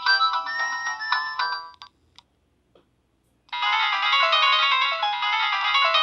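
Nokia 7650 stock ringtones. One melody ends about two seconds in, followed by a short silence with a couple of faint clicks. About three and a half seconds in, the next ringtone starts abruptly: a busy melody of quick notes, several sounding at once.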